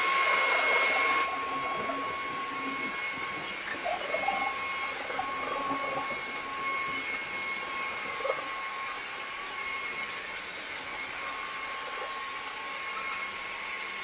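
Deerma VX95W wet-dry upright vacuum running in its automatic water-suction mode, a steady motor hum with a high whine, as it sucks up spilled water from a tile floor. Its sound drops a step about a second in and then stays even.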